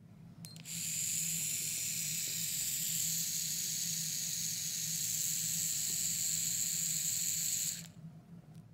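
NAKANISHI micromotor grinder with a 90° angle-head attachment and a small abrasive disc, running free at high speed: a steady high whine with hiss over a low hum. A click comes about half a second in, just before it starts. The whine cuts off about a second before the end, leaving the low hum to fade.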